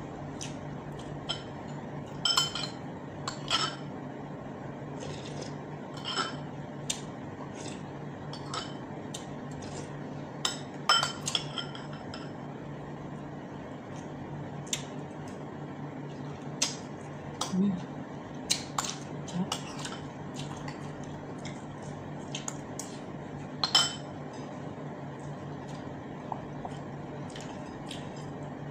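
Spoon and fork clinking and scraping against dishes while eating, in scattered sharp clicks that are loudest about a third of the way in and again near the end. A steady low hum runs underneath.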